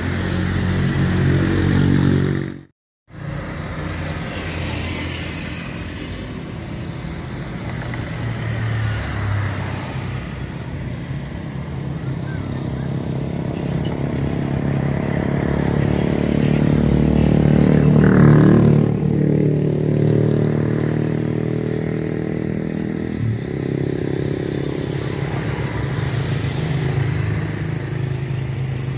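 Airliner jet engines: an Airbus A321 climbing out, cut off abruptly to silence about three seconds in. Then a Boeing 737-900ER's CFM56-7B engines on final approach and landing, a steady jet drone with a low hum that grows to its loudest about two-thirds of the way through as the aircraft passes. The drone stays strong as the jet rolls out on the runway.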